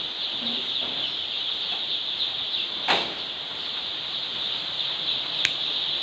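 A great many day-old chicks peeping constantly in a dense, high-pitched chorus. A single knock sounds about three seconds in, and a short sharp click near the end.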